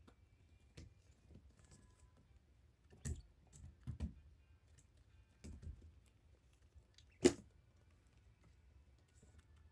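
A handful of short taps and knocks, the loudest about seven seconds in, over a faint low hum.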